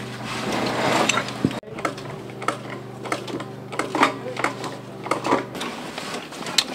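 Irregular metallic clanks and taps from the stainless steel retaining ring and tools being worked into place inside a steel pipe, over a steady mechanical hum that cuts off about five and a half seconds in.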